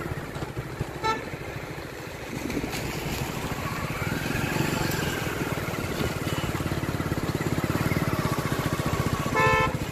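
Motorcycle engine running steadily while riding, with a fast, even beat. A horn beeps briefly about a second in, and again a little longer near the end.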